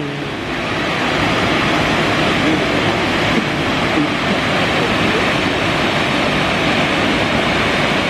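Shifen Waterfall, a wide curtain of water pouring over a rock ledge into its plunge pool: a loud, steady rush of falling water.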